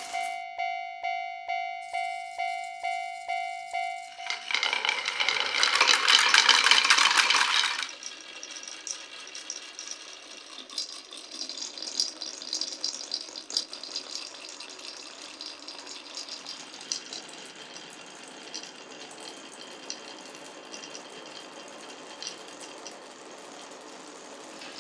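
A level-crossing bell rings in even strokes, about two and a half a second, for the first four seconds. A loud rattling clatter of marbles follows for a few seconds, then a long stretch of marbles rolling and clicking along wooden and clear-pipe track.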